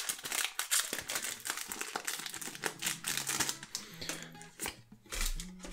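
Foil wrapper of a Pokémon card booster pack crinkling and crackling in quick, irregular clicks as hands pull it open, thinning out near the end, over quiet background music.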